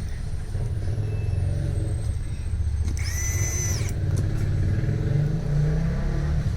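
A steady low mechanical rumble, like an engine running, swelling slightly in the second half, with a brief high-pitched tone about three seconds in.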